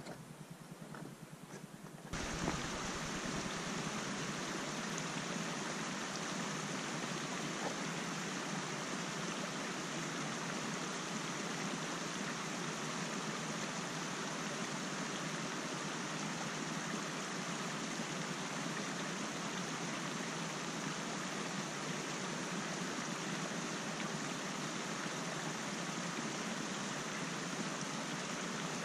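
Faint footsteps on loose rock, then about two seconds in a sudden switch to a steady rushing noise like a mountain stream.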